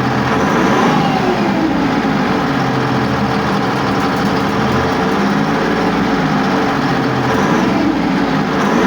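YPR-765 armoured vehicle's two-stroke V6 diesel engine running loudly on test after repair, its revs rising and falling back briefly about a second in and again near the end.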